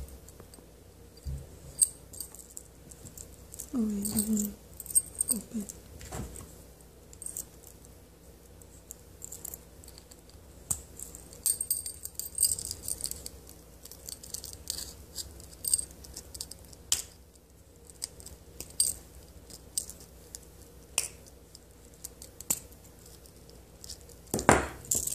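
Scattered light metal clicks and jingles from a split key ring and lobster-clasp key holder being handled and fitted onto a beaded keychain.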